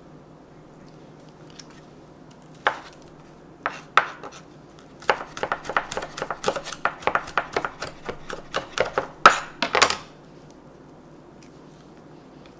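Chef's knife mincing garlic and red chilies on a wooden cutting board: a few separate knocks, then a quick run of chops at about five a second, ending with two harder strikes.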